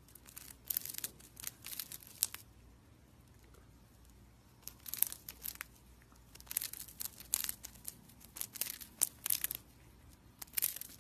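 Hamster nibbling a wafer biscuit: quick, crisp crunching clicks in irregular bursts, with short pauses between bites.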